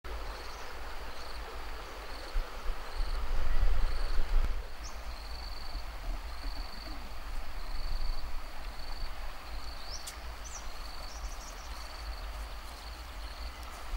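Rural outdoor ambience: an insect chirps in a steady run of short, evenly spaced high pulses over a low wind rumble on the microphone, which swells around three to four seconds in. A bird gives a couple of quick rising chirps about ten seconds in.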